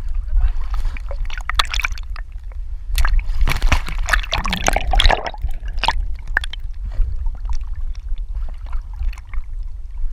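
Water splashing and sloshing right at a dog-mounted GoPro as a border collie swims, over a constant low rumble of water buffeting the camera. The splashing grows denser from about three to five seconds in.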